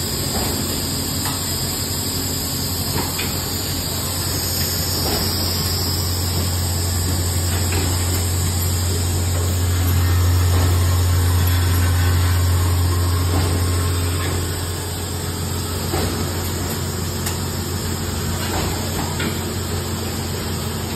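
Automatic blood bag making machine running: a steady low hum from its vibratory bowl feeder, louder around the middle, with scattered light clicks from the mechanism and a faint hiss.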